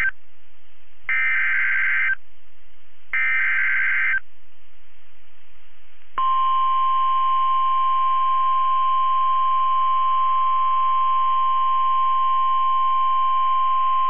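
NOAA Weather Radio EAS/SAME alert header: the tail of one burst of buzzing data tones, then two more one-second bursts about a second apart. About six seconds in, the steady 1050 Hz warning alarm tone starts and holds, signalling a warning-level alert, here a severe thunderstorm warning.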